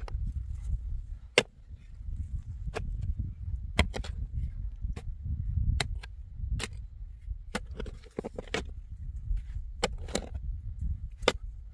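A digging tool striking hard ground again and again, about a dozen sharp blows roughly a second apart, over a low steady rumble.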